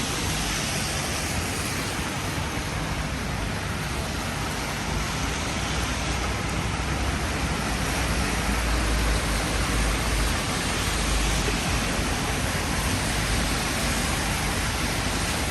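Heavy rain falling steadily as an even hiss, with a low rumble swelling about halfway through.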